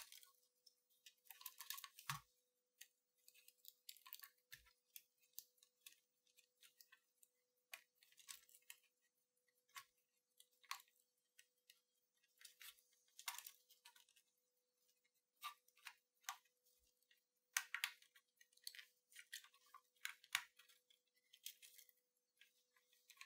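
Faint, scattered clicks and ticks of small plastic parts being handled as a ribbon cable is fitted into the opened Sony WM-F63 Walkman's case and circuit board, over a faint steady hum.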